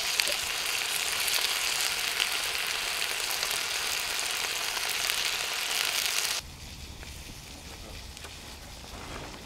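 Sausages and bacon sizzling in a frying pan, with a few sharp clicks as metal tongs turn them. About six seconds in, the sizzle cuts off suddenly, leaving a quieter low rumble.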